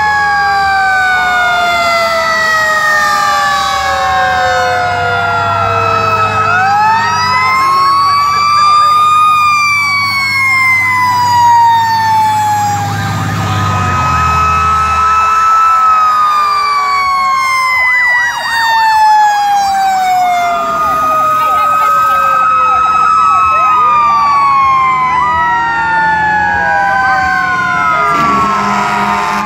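Several fire truck sirens wail at once, their pitches rising and falling slowly and crossing over one another. The engine of a passing truck rumbles underneath, swelling through the middle and dropping away about halfway through.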